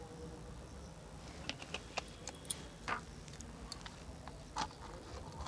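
Hand mixing oil into dry flour in a stainless steel bowl: irregular light clicks and ticks against the steel, starting about a second in.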